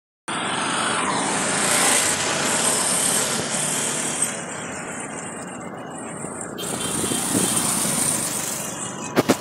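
City road traffic heard from a moving vehicle: a steady rush of motorcycle engines, tyres and road noise as motorcycles and a small truck ride alongside. Two sharp clicks near the end.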